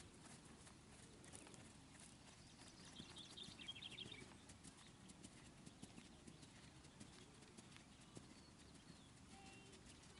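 Faint hoofbeats of a horse trotting on a sand arena, with a brief high twittering about three seconds in.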